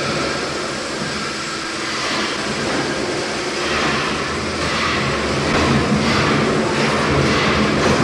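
Hesketh steam winding engine, a Worsley Mesnes twin-cylinder 500 hp colliery winder, running, with a regular beat that grows stronger about halfway through.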